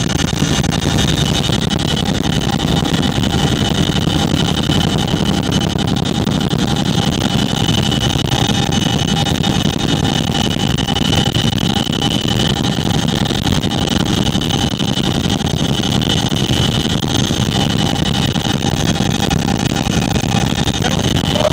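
Boeing CH-47 Chinook in flight, heard from inside the cabin: a loud, steady drone from its twin turboshaft engines, tandem rotors and transmission, with a steady high whine over a deep rumble.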